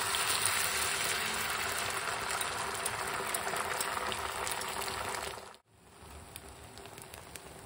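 Beaten egg with onion, green chilli and curry leaves sizzling loudly as it hits hot coconut oil in a non-stick pan, the sizzle slowly dying down as the omelette sets. About five and a half seconds in it cuts off abruptly and returns as a quieter sizzle with scattered pops.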